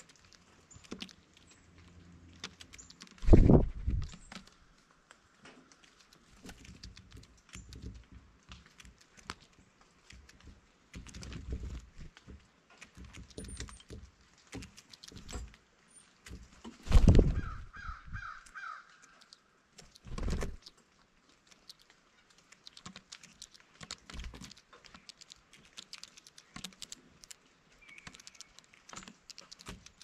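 Blue jays feeding at a bird feeder: many scattered taps and clicks of beaks and feet on the feeder and seed, several heavy thumps, and a quick run of about five repeated calls a little past halfway.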